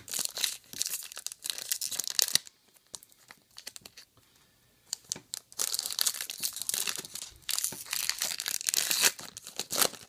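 Foil wrapper of a Topps Star Wars trading-card pack being torn open and crinkled in the hands, in two spells of crackling with a quieter couple of seconds between them.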